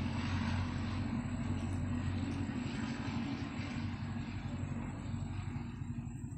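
A steady low mechanical hum with a rushing noise over it, fading away over the last couple of seconds.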